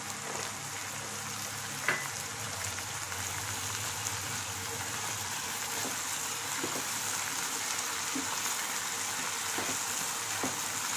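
Sliced brinjal frying in oil in a kadai with a steady sizzle, stirred with a spatula that makes a few light scrapes and taps against the pan in the second half. A single sharp click about two seconds in.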